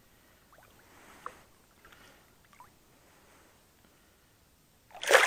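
Faint lapping of shallow water around hands holding a trout, then a sudden loud splash near the end as the trout is released and kicks away.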